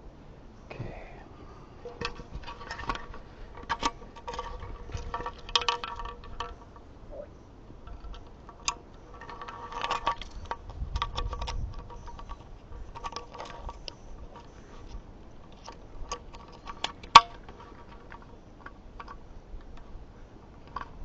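Scattered clicks and light clinks of small hard parts and tools being handled, some ringing briefly, with one sharper click about 17 seconds in.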